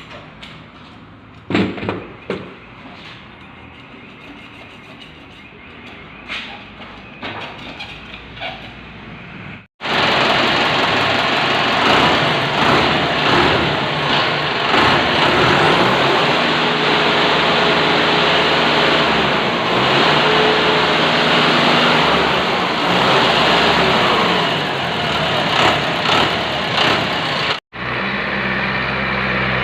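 A few knocks and clatter at a low level, then from about ten seconds in a Mahindra Arjun tractor's diesel engine running loud, its pitch shifting a few times; its rotary fuel-injection pump is fitted with a booster. Near the end the sound cuts to the engine running at a steadier, lower hum.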